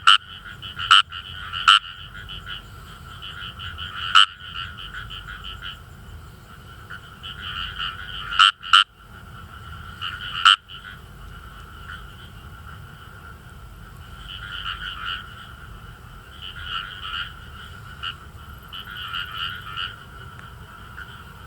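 Indian rice frogs calling in a chorus: bursts of rapid, finely pulsed 'gue-gue' croaks, overlapping and coming in clusters. Several loud sharp clicks stand out in the first half and are the loudest sounds.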